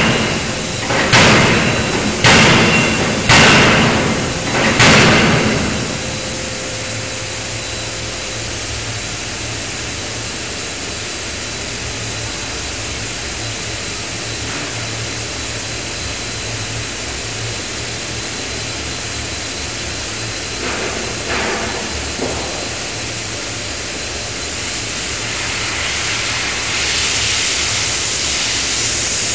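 A 5-ton electro-hydraulic die forging hammer strikes hot steel in a closed die, four heavy ringing blows about a second apart, then stops. A steady machine hum follows, with a couple of light knocks about 21 seconds in and a hiss rising near the end.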